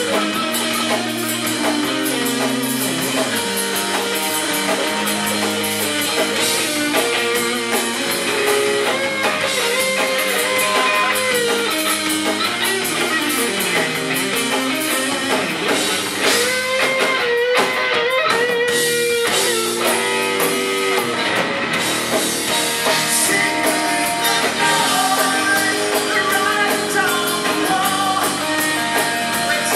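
Live rock band playing loudly: electric guitar lead with bent, gliding notes over drums.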